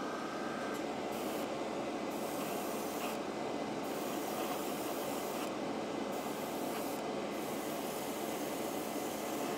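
Dual-action airbrush hissing as it sprays aged white paint, the spray breaking off briefly a few times, over the steady noise of a spray booth's exhaust fan.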